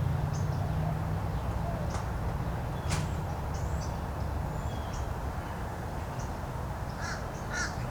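Outdoor birds chirping and calling, with a louder pair of calls near the end, over a steady low rumble; a single sharp click about three seconds in.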